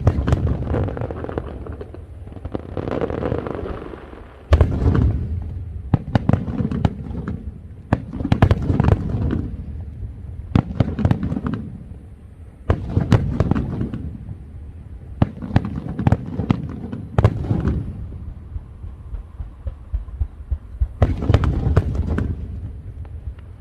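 Aerial fireworks going off in quick succession: clusters of sharp bangs every second or two, each followed by low rumbling echoes and crackle.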